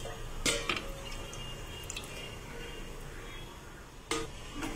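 A few light clicks and knocks, one about half a second in and a couple more near the end, over a low steady background hum.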